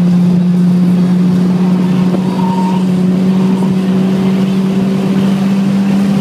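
Honda S2000's four-cylinder engine running at high, steady revs under way on a race track, holding one droning note.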